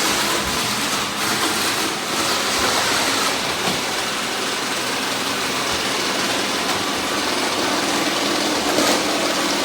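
Robot vacuum cleaners running together: a steady mechanical whir of suction motors and brushes.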